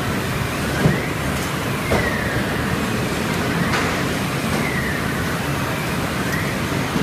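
STEEN ST 700 chicken skinning machine running, a steady mechanical hum with a whine that slides down in pitch every three seconds or so. Two short knocks come about one and two seconds in, the first the loudest.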